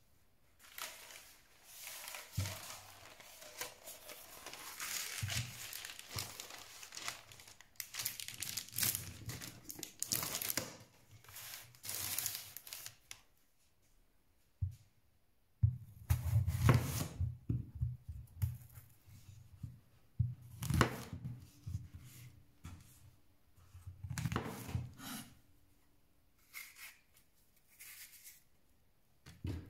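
Baking paper crinkling and tearing for about the first thirteen seconds. Then come heavy knocks as a bamboo cutting board and an apple are set down on the table, and a large knife cuts through an apple onto the wooden board.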